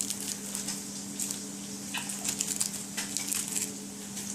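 Knife slicing through folded, rolled lettuce leaves on a cutting board: irregular crisp cuts, over a steady low hum.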